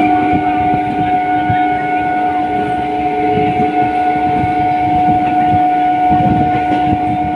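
Train horn sounding one long, steady blast of several seconds over the rumble and rattle of the moving train's wheels on the track.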